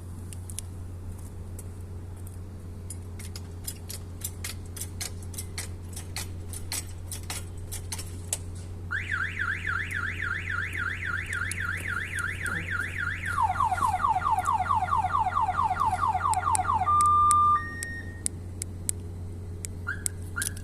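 Repeated clicking of a jack being worked under the car. About nine seconds in, the aftermarket alarm's siren goes off, set off by its tilt sensor as the car is lifted: a warbling siren that switches to a faster, lower warble, holds a short steady tone and cuts off as it is switched off. A few short faint bleeps follow near the end.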